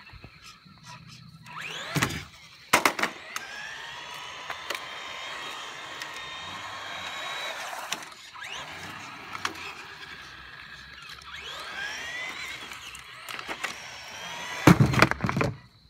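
Electric RC car's motor whining, its pitch rising and falling as it speeds up and slows. A couple of sharp knocks come two to three seconds in, and a loud burst of noise shortly before the end.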